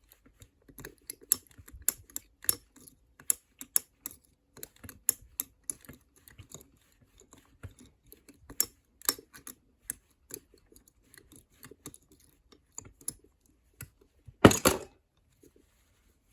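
Irregular light metallic clicks and taps of a wire pick and homemade tool working inside an ERA lever padlock, with one louder clatter near the end.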